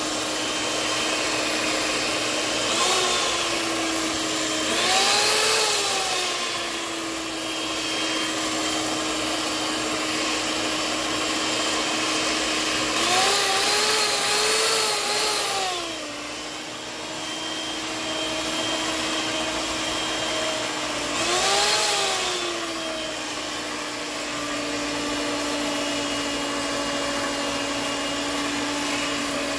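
Handheld electric mixer running, its beaters whipping thickening gravy in a pot: a steady motor hum whose pitch swells up and settles back about four times.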